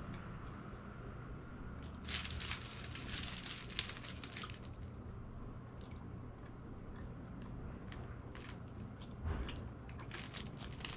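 Thin plastic bread bag crinkling as it is handled, a dense stretch of rustling about two seconds in and scattered crackles again near the end, with bread being chewed close by, over a low steady hum.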